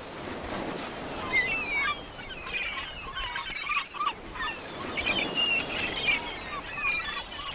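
A flock of birds calling, with many short overlapping chirps and squawks over a faint background hiss.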